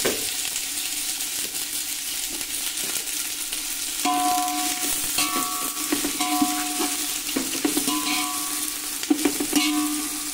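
Sliced onions and green chillies sizzling in hot mustard oil in a metal pot. From about four seconds in, a spatula stirs them, scraping the pot with short ringing squeaks on each stroke.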